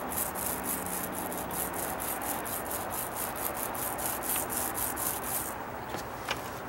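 Mini paint roller rolled back and forth over a wooden deck stair tread, spreading wet primer in quick short strokes, about four to five a second, with a rhythmic hissing rub. The strokes stop about five and a half seconds in.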